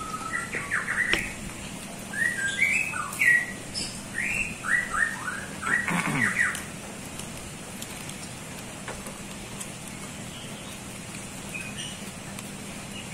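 A bird chirping: a quick run of short, sliding chirps for the first six seconds or so, then it stops and only faint background noise with a few small clicks remains.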